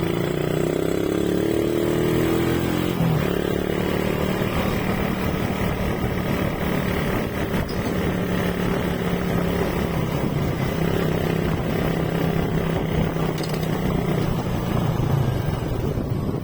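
Motorcycle engine pulling away, its pitch rising over the first three seconds or so, then running steadily at cruising speed, with wind noise on the microphone.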